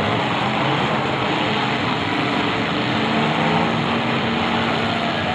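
Several demolition derby cars' engines running and revving together, a loud, dense mechanical din. A steady engine drone comes up about halfway through.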